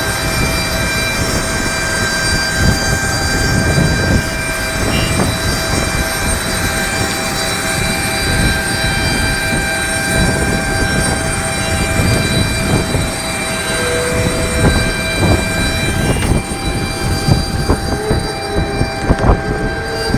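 Jet turbine noise from a nearby airliner: a steady whine of several high tones over a loud rumble. A few short knocks come in the later part.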